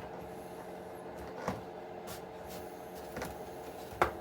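A few light knocks and clicks of small RC truck parts being handled and set down on a workbench: three in all, the loudest near the end. A steady electrical hum runs underneath.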